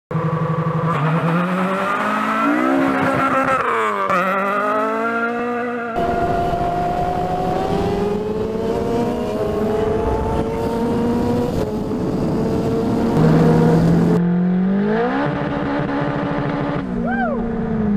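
Three cuts of vehicle engines: a car engine revving up and down, then a sport motorcycle engine climbing steadily in pitch under acceleration with heavy wind rush, then an engine revving up again with a brief rising-and-falling whistle near the end.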